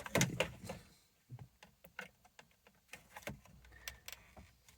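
Scattered light clicks and taps of a screwdriver working against plastic dash trim as it pries at a clip holding the climate control module.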